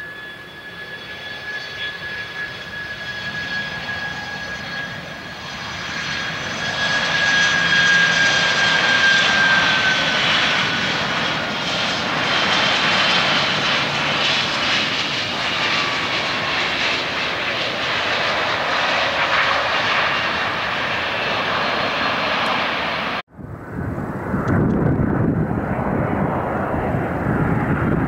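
Boeing 767 jet engines on landing approach: a steady high engine whine over a growing roar, the whine dropping in pitch as the airliner passes low overhead. About 23 s in the sound cuts off sharply and comes back as a deeper jet rumble from another approaching 767.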